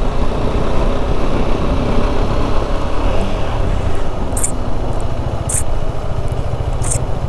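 Motorcycle riding along, its engine and road noise running steadily, with three brief high hisses in the second half.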